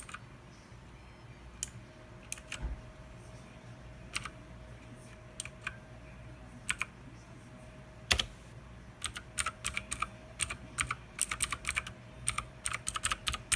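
Keys of a Thermaltake Poseidon Z RGB mechanical keyboard being pressed. Single clicky keystrokes come a second or two apart, then one heavier knock. Near the end they turn into a fast run of several keystrokes a second.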